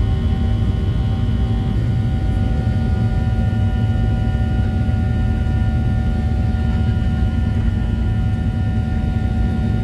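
A Boeing 737-700's CFM56-7B turbofan engines at climb power, heard inside the cabin: a loud, steady low rumble with several steady whining tones on top.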